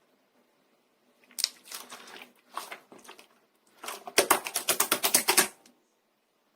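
Clear slime being squished and poked, giving sticky clicking and popping. After about a second of quiet come scattered crackles, then a fast, dense run of clicks near the end, louder than the rest.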